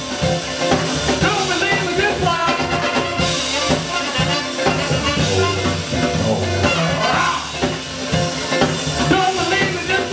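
Live band playing an upbeat funk number, with drum kit and vocalists singing over it.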